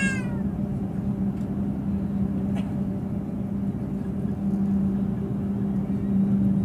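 Steady cabin drone inside an Airbus A350 on the ground, its Rolls-Royce Trent XWB engines running at low taxi power with a constant low hum. A brief high squeal falls in pitch right at the start.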